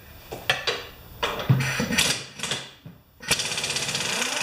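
A few sharp knocks and clanks of tools and metal being handled, then, about three seconds in, an impact wrench starts a rapid, steady hammering rattle as it works the mower's blade bolt loose.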